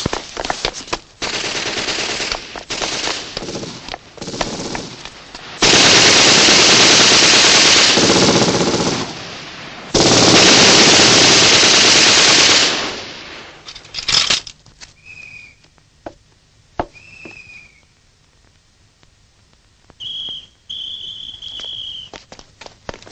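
Film-soundtrack gunfire: rapid submachine-gun bursts, then two long unbroken stretches of machine-gun fire of several seconds each. After these it thins to scattered single shots, with a few short high whistling tones.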